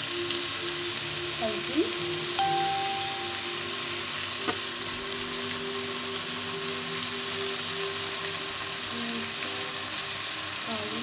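Boneless chicken cubes frying in oil in a steel pan, giving a steady sizzle, with a single click about four and a half seconds in.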